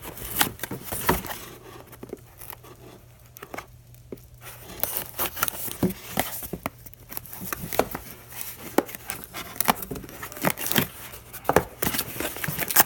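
Packaging being opened by hand, crinkling and tearing in many short sharp crackles, with a sparser stretch a couple of seconds in and busier handling in the second half.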